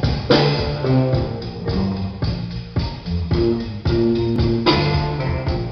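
Music with guitar, bass and a drum kit playing loudly from a motorcycle's aftermarket stereo with Focal speakers.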